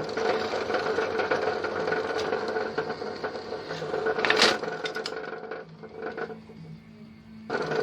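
1952 Lister D single-cylinder stationary engine running with a steady rapid clatter. A sharp, louder knock comes about four and a half seconds in. The sound then drops low for nearly two seconds before cutting back in abruptly near the end.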